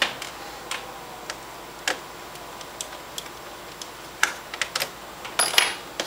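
Scattered light clicks and taps of a small screwdriver against the keyboard screws and plastic case of a Dell Vostro 1500 laptop as the keyboard is unscrewed. The clicks come at irregular intervals, with a quicker cluster of clicks in the last two seconds.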